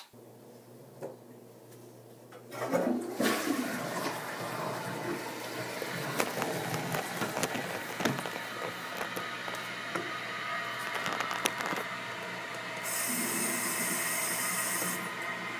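Water rushing in a small bathroom. It starts suddenly about two and a half seconds in and then runs on steadily, with a few small knocks over it.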